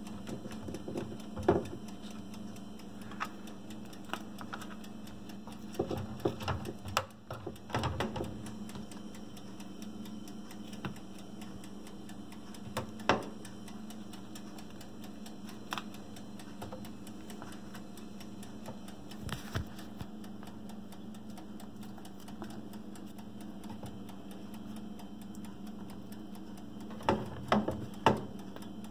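Scattered light taps and clicks of raw potato slices being picked up and set down one at a time on a metal baking pan, in small clusters with pauses between, over a steady low hum.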